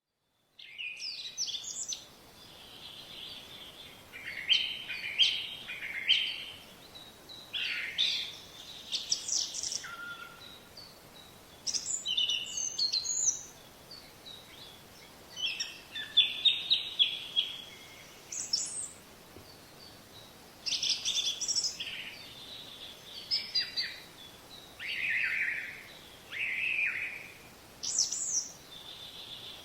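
Songbirds singing: short, high-pitched phrases of chirps and trills follow one another every second or two, with brief pauses between them.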